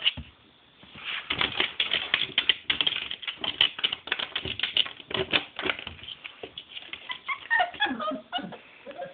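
Pit bull puppy scratching and pawing at a glass window pane, a rapid run of clicking and tapping. A few short whines come near the end.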